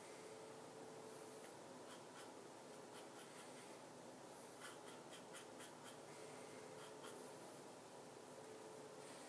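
Faint, short scratching strokes of a double-edge safety razor with a new Personna blade cutting lathered stubble on the neck, a few at a time with pauses between.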